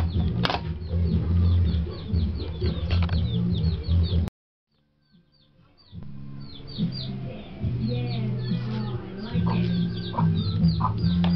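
Chickens clucking with a run of high, quick peeping chirps over a low steady hum. The sound cuts off suddenly a little past four seconds in and returns about a second and a half later.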